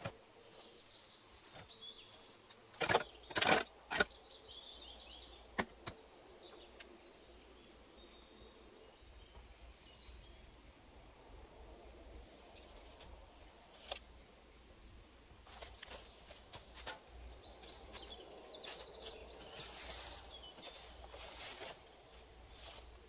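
Small birds chirping, with a few sharp knocks about three seconds in and scattered handling and scraping noises later.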